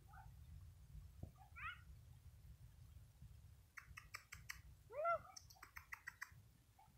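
Faint, short high-pitched whimpers and yelps from pit bull puppies at play. The loudest is a rising-and-falling yelp about five seconds in, with two quick runs of sharp chirping ticks around it.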